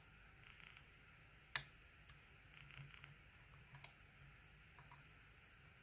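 Faint, sparse metallic clicks of a flag pick working the dimple pins of a DOM ix 10 lock, with one sharper click about one and a half seconds in and a few smaller ticks after.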